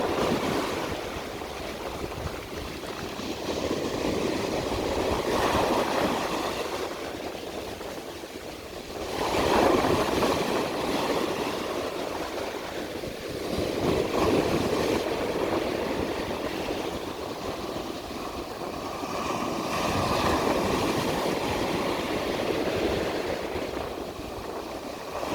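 Ocean waves breaking on a beach, the surf swelling and falling back in surges every few seconds.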